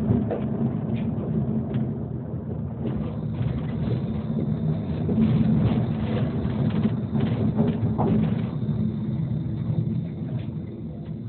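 Tram running along the rails, heard from inside the passenger car: a steady low rumble with scattered clicks and knocks from the wheels and track. It grows quieter over the last few seconds as the tram slows.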